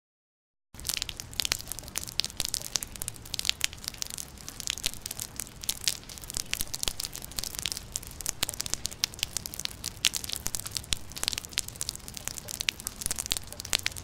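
Rain falling, with many sharp, close drop spatters over a steady hiss; it starts about a second in.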